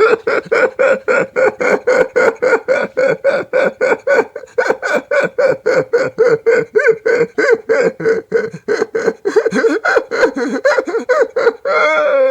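A person laughing in a long unbroken run of short, high-pitched "ha" sounds, about four to five a second, keeping an even rhythm throughout.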